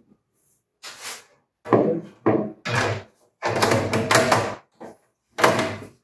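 Case panel of a Dell OptiPlex 7040 desktop being fitted and pressed shut: a run of plastic-and-metal knocks, scrapes and clicks as its latches snap into place. About five separate bursts, the longest and loudest in the middle.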